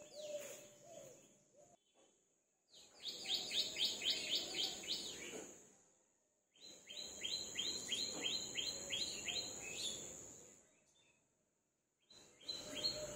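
A bird singing fast series of repeated short sweeping notes, about five a second, each run lasting two to three seconds, over a steady high-pitched whine. The sound cuts off abruptly between stretches.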